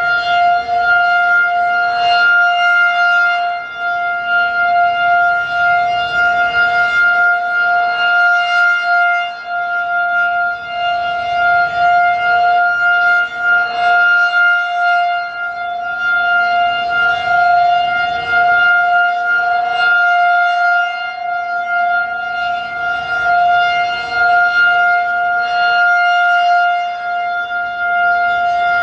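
Federal Signal 2001-DC electromechanical rotating siren sounding a steady alert tone at a fixed pitch. Its loudness swells and dips every few seconds as the fast-rotating horn sweeps past (10 RPM).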